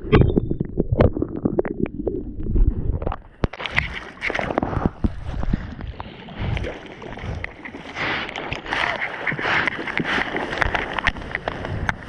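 Ocean water churning and splashing right at the camera: muffled and deep for the first few seconds while the lens is in whitewater foam, then from about three and a half seconds in a bright, rushing splash of surface water as an arm paddles through it.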